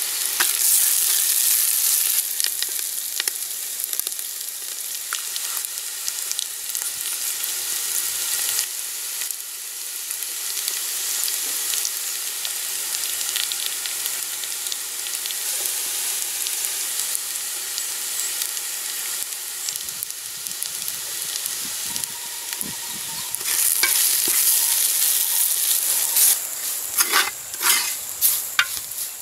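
Onions, green chillies and leaves sizzling in hot oil in a clay pot, stirred with a wooden spoon. The sizzle swells near the end, where the spoon scrapes the pot in a run of sharp strokes.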